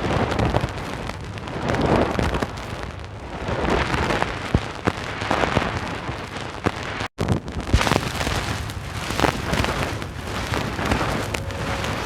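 Synthesized space sound effect played from a vinyl flexidisc: a hissing, crackling noise that swells and falls every second or two, with sharp clicks scattered through it. It drops out completely for an instant about seven seconds in.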